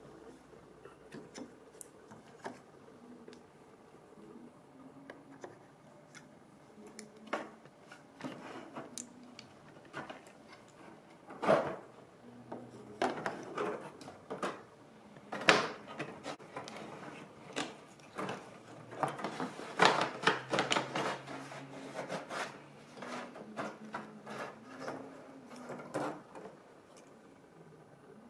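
Irregular knocks and clatters of HO gauge model locomotives being picked up, handled and set down on a wooden table. The sounds are sparse at first and come thick and fast in the second half.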